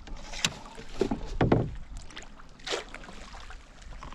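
Water splashing three or four times, loudest about a second and a half in, as a hooked northern pike thrashes at the surface beside the canoe and the landing net. The fish still has fight left in it.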